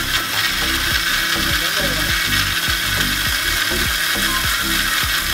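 Electric mixer grinder running at speed: steady motor whirr with the steel jar rattling as it grinds boiled jackfruit seeds and milk into a thick paste.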